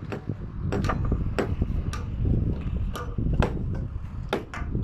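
Hammering on timber roof formwork: irregular sharp knocks over a steady low rumble.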